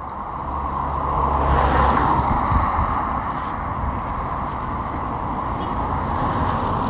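A car passing close by on the road: engine hum and tyre noise swell to a peak about two seconds in, then ease into steady traffic noise.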